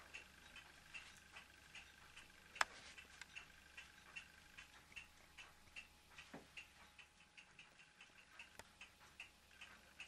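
Faint, steady ticking, about two and a half ticks a second, with one sharper click about two and a half seconds in.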